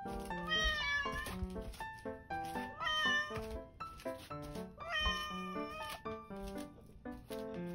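Tabby cat meowing up at its owner: three long meows, about two seconds apart, each bending in pitch.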